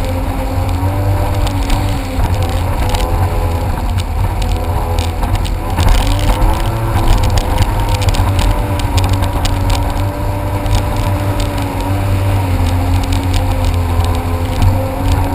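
Personal watercraft (jet ski) engine running under way, its pitch rising and falling as the throttle changes, over a heavy low rumble.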